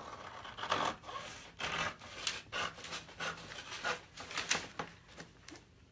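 Scissors cutting through folded freezer paper, with irregular crisp snips and the paper rustling.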